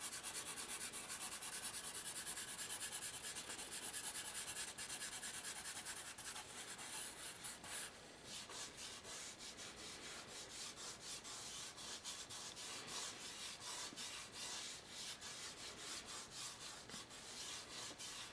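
Charcoal pencil scratching across paper in back-and-forth shading strokes. The strokes are rapid and even at first, break briefly about eight seconds in, then come looser and less regular.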